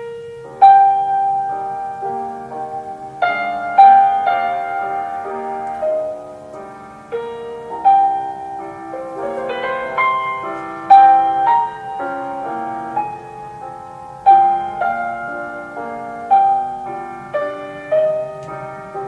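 Piano playing a slow classical piece: melody notes and chords struck and left to fade, with stronger accented notes every few seconds.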